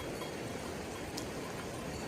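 Steady rainfall, an even hiss of rain, with a single light tick a little past halfway.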